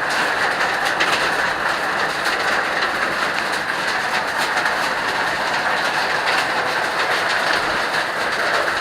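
Steady rush of falling water from a waterfall, like heavy rain, with scattered faint ticks.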